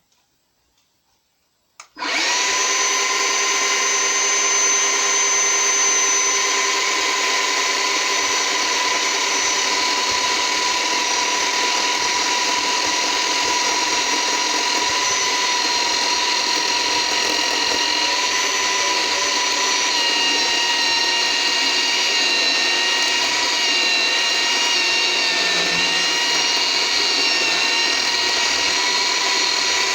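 Chainsaw starting about two seconds in and running steadily with a high whine as it cuts through a cast of hardened Hydrostone plaster.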